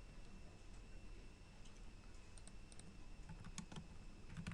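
Faint computer keyboard typing: a few scattered keystrokes, more of them in the second half, over a low steady electrical hum.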